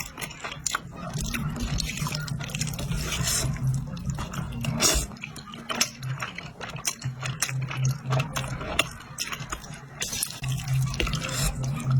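Close-miked slurping and chewing of saucy stir-fried rice noodles: wet smacking with many small clicks, and several longer slurps.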